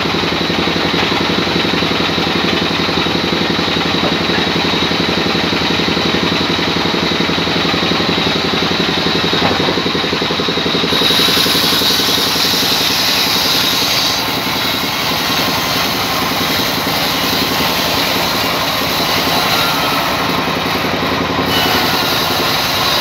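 Sawmill vertical band saw running steadily: a low machine hum with a thin high whine above it. For about three seconds halfway through, a brighter hiss rises over it.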